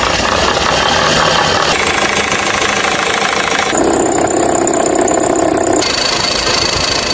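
A run of short car abnormal-noise samples, each about two seconds long, that cut abruptly from one to the next. First comes mechanical engine noise, then a sample with a steady humming whine, and near the end one with a thin high-pitched whine.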